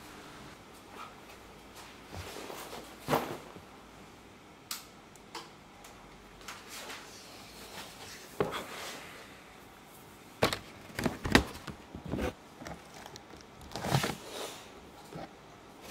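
Scattered light knocks and clicks of objects being handled, a dozen or so, a few of them in a quick cluster past the middle, over a faint steady hiss.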